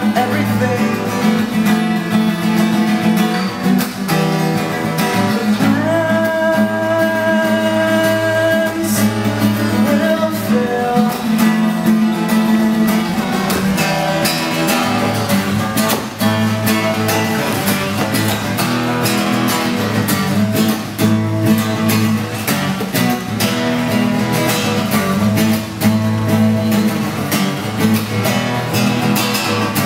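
Acoustic guitar played live, with a steady run of quick repeated strokes over held chords.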